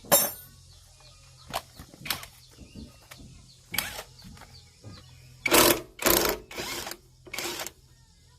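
Irregular knocks and clatter of hand repair work on an industrial crusher: a sharp knock at the start, scattered single knocks, then a quick run of four longer, louder ones near the end. A faint low hum runs underneath.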